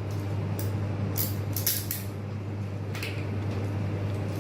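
A crimping tool's blade cutting a UTP Ethernet cable, heard as a handful of short scraping snips over a steady low hum.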